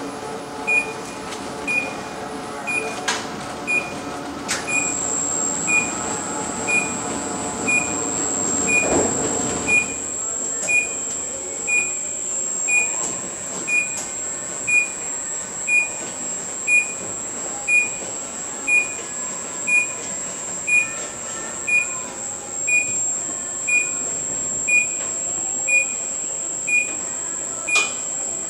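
An automated greenhouse bench-handling machine's warning beeper sounds about once a second over the running of its drive motors. The motor hum fades after about ten seconds, and a steady high whine starts about five seconds in.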